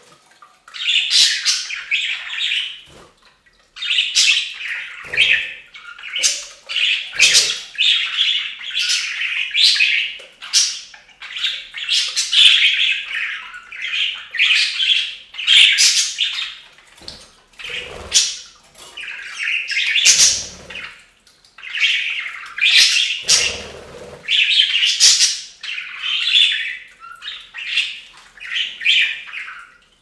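Budgerigars chattering: a near-continuous stream of warbling chirps and squawks in quick bursts, broken by a few short pauses.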